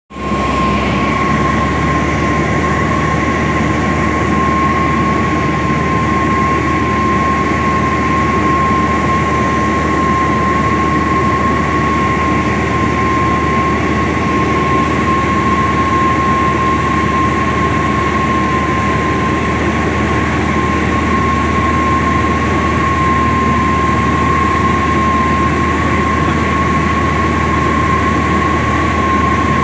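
Aeroplane engine running steadily, heard from inside the cabin as a loud, even drone with a steady high-pitched whine over it.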